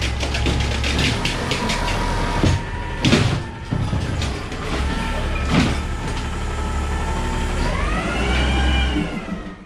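Autocar ACX garbage truck running, with clanks and two short hissing bursts. About eight seconds in, a whine rises in pitch and then levels off.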